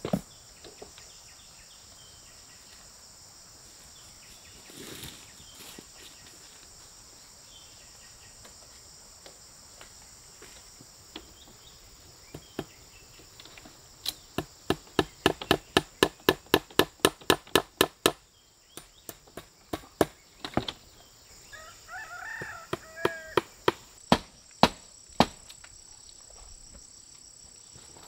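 Insects drone steadily over barbed-wire fence work. About halfway through comes a fast, even run of sharp knocks, about five a second for some four seconds, then a few more knocks later. A short bird call sounds near the end.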